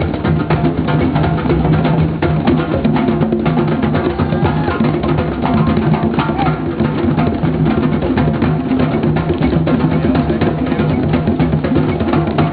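Drums played fast and densely, strike after strike without a pause, over a steady low tone.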